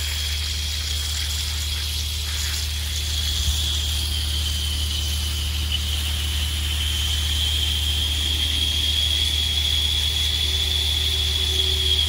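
Compressed air hissing and whistling out of a drip-line irrigation system's emitters as the lines are blown out with a compressor for winterizing: a steady high whistle that wavers slightly in pitch, over a steady low rumble.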